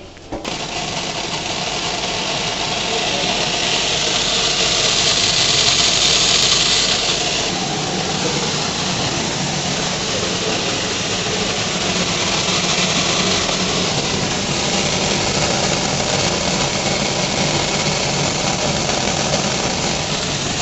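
Chickpea color sorting machine running with a batch of chickpeas streaming through it: a dense, steady hissing rattle. It starts abruptly, is loudest and most hissing a few seconds in, then holds steady.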